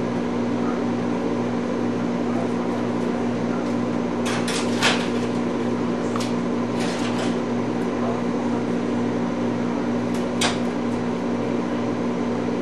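A steady low electrical hum, with a few short knocks and clatters about four to seven seconds in and one more near ten seconds, as a dish of food is handled at a kitchen wall oven.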